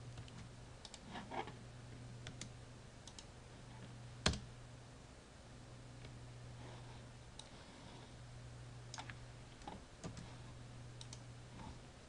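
Scattered computer mouse and keyboard clicks, with one louder click about four seconds in, over a steady low hum.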